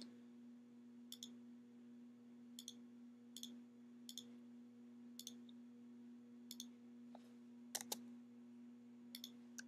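Faint, sharp computer mouse clicks, about one every second or so with two in quick succession near the end, as dimension lines are placed in a drawing program. A low steady hum runs underneath.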